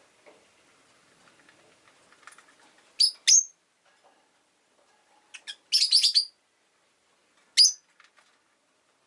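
Rosy-faced lovebird giving short, sharp, high chirps: two about three seconds in, a quick run of several a little past halfway, and one more near the end.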